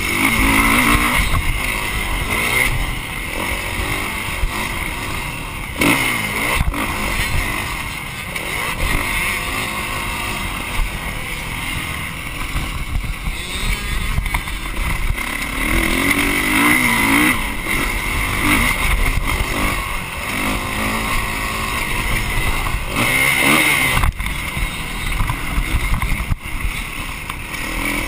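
Dirt bike engine revving up and down as it is ridden hard around a motocross track, rising and falling through the laps. A few sharp knocks break in, about a quarter of the way through and again near the end.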